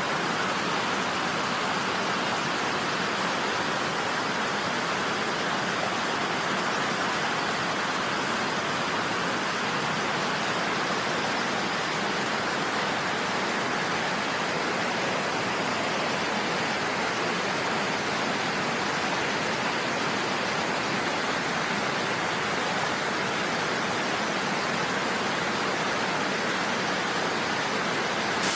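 Steady rush of fast-flowing muddy floodwater, an even roar of moving water with no breaks.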